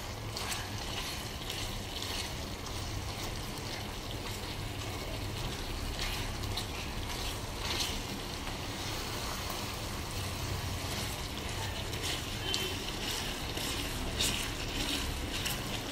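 Spatula stirring and pressing soft-cooked tomatoes in a pan: a steady wet stirring noise with scattered scrapes and taps of the spatula against the pan. The tomatoes have cooked down almost to a mash.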